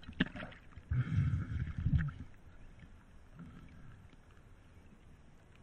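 Sea water splashing and sloshing right at the waterline next to the microphone, loudest in a burst of splashes about one to two seconds in, then settling to a soft lapping.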